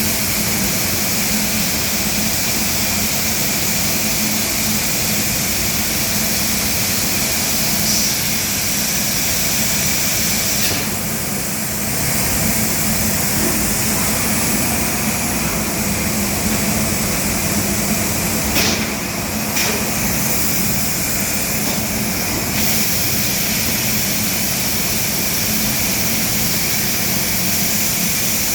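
CNC machining centre running steadily while it machines furniture parts: a constant hum and whine from the spindle and machine with strong high hiss. The hiss drops away briefly about eleven seconds in and again for a few seconds around twenty seconds in, as the cutting changes.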